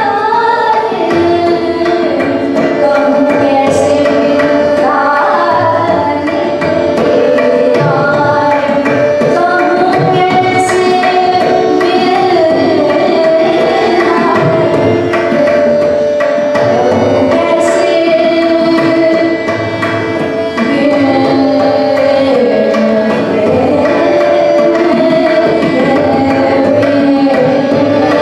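Hindustani classical female vocal, a sung bandish with gliding, ornamented phrases, accompanied by tabla over a steady drone.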